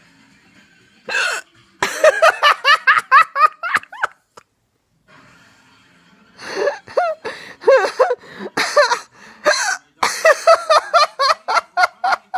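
A young child's hiccupping giggles: a sharp breath about a second in, then a run of quick, staccato laugh pulses, several a second; after a pause of about two seconds the giggling starts again in more quick runs.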